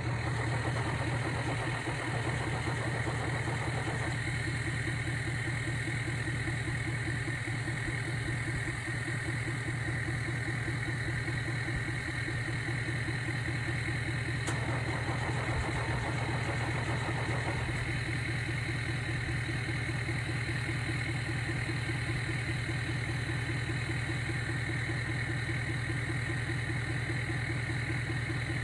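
Steady low mechanical drone from a motor vehicle, starting abruptly at the outset and running on evenly, with a fine rapid pulsing in it.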